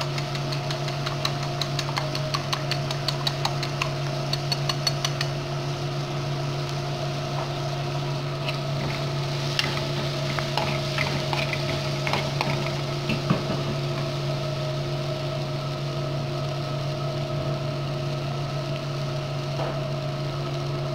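Fork beating eggs in a plate: rapid regular clicking for the first five seconds or so, then a few scattered clinks of a metal spoon in the frying pan. A steady low machine hum runs underneath throughout and is the loudest sound.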